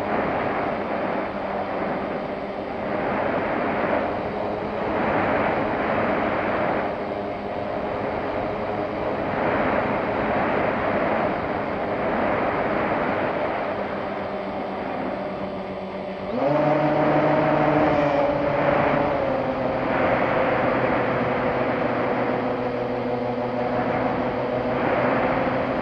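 Small plane's motor and propeller, heard through its onboard camera, a steady hum under wind rush that swells and fades every second or two. About sixteen seconds in, the motor's pitch jumps up suddenly and stays higher.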